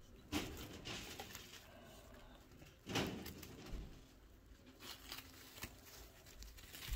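Baby chinchillas moving about in wood-shaving bedding, with soft chirping calls. There are two louder scuffles, about a third of a second in and about three seconds in.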